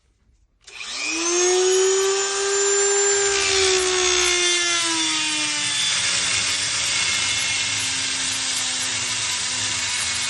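Power drill spinning up about a second in and running at high speed, cutting open a phone display's security lock; its whine drops in pitch around the middle as the motor comes under load, then holds steady.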